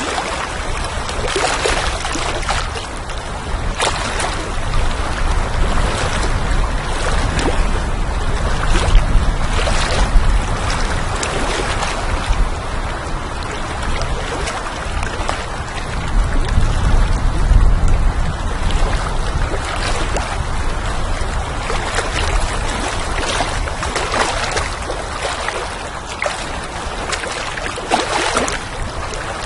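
Water lapping in irregular small splashes, with wind rumbling low underneath; the wind swells twice, about a third and about halfway through.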